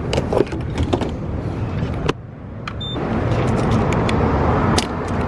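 A car's engine running as a low rumble, with scattered clicks and knocks. About two seconds in it briefly drops away and a short electronic beep sounds, then the engine rumble builds steadily louder.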